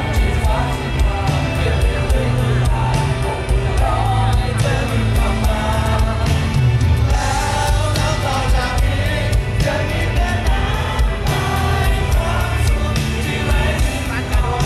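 Live rock band performance: a male lead vocal sung over electric guitar, bass and a steady drum beat.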